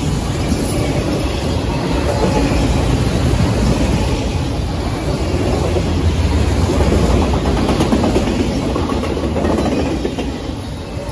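Freight train of enclosed autorack cars rolling past close by: a loud, steady rumble and rattle of steel wheels on the rails, easing a little near the end.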